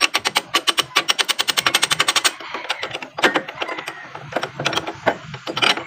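Impact wrench hammering on a nut on the vehicle's axle, a fast even rattle of blows that stops a little over two seconds in. It is followed by several single sharp knocks.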